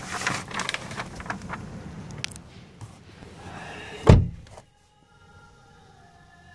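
The 2017 Honda Civic's car door being shut: one heavy thump about four seconds in, after which the outside noise cuts off suddenly. Before it there is a run of scattered clicks and knocks.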